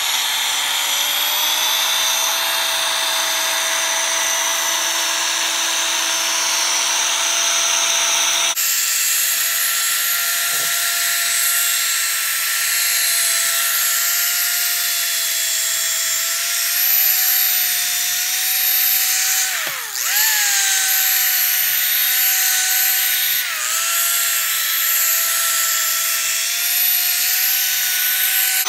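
Corded electric drill spinning a 500-grit sanding disc against a yellowed plastic headlight lens, a steady motor whine as the lens is dry-sanded. About twenty seconds in, the pitch dips briefly and climbs back, and a few seconds later it dips slightly again.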